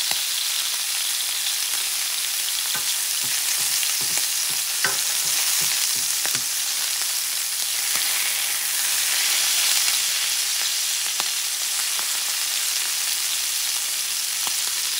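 Kangaroo loin searing in hot ghee in a frying pan: a steady sizzle, with a few faint clicks.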